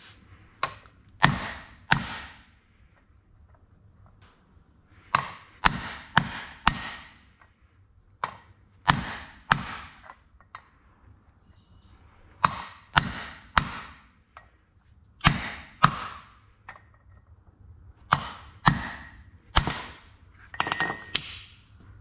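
Lump hammer striking a metal pipe held on a clutch thrust bearing's carrier: sharp, ringing metallic blows in groups of two to four with short pauses between, driving the seized bearing off the carrier. The last group, near the end, is a quicker rattling cluster with a clear ring.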